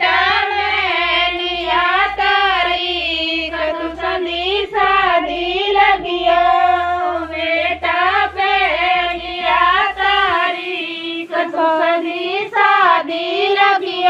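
A song with a high solo singing voice that wavers on held notes, over a steady low beat that drops out about ten seconds in.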